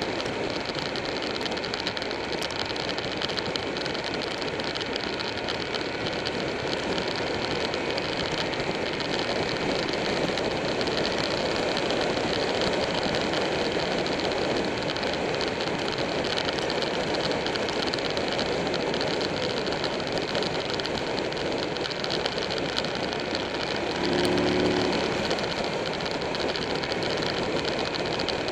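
Motorcycle riding at road speed, likely the rider's Buell 1125R V-twin: steady wind rush over the bike-mounted camera with the engine running underneath. A brief, slightly louder pitched sound comes near the end.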